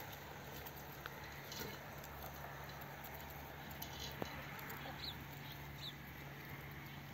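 Hens and Muscovy ducks feeding on dry ground, faint: scattered pecking ticks, and two short high chirps about five seconds in.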